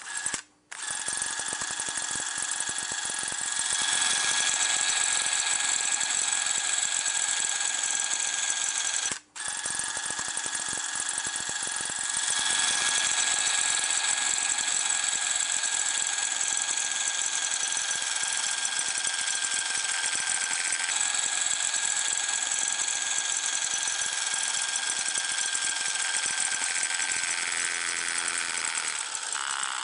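Steady high-pitched hiss with a thin, unchanging whine in it, cutting out for an instant twice.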